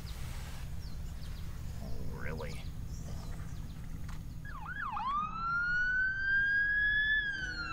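Siren wail: about halfway through, a few quick up-and-down swoops, then one long tone that rises slowly and begins to fall near the end, over a faint low hum.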